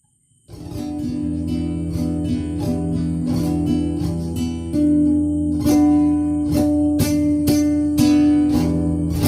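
Acoustic guitar strummed in a steady rhythm, coming in about half a second in and getting louder around halfway.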